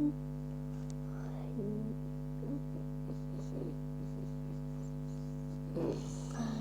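Steady low electronic hum made of several held tones, with faint short wavering sounds coming and going over it, the clearest about a second and a half in and near the end.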